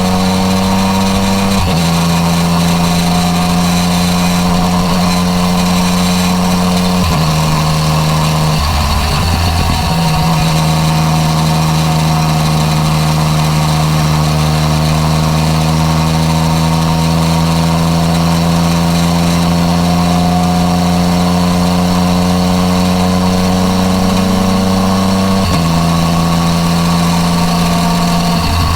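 Yamaha MT-09 Tracer's three-cylinder engine with an Akrapovič exhaust running under way. Its pitch drifts slowly with road speed and changes abruptly about four times as gears are shifted with the quickshifter.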